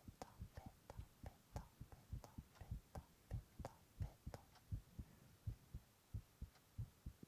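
A person's heartbeat picked up by a microphone: a steady run of quiet, low thumps, several a second.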